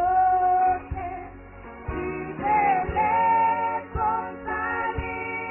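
Women's voices singing a gospel song together through microphones, holding long notes over a low beat that falls about once a second.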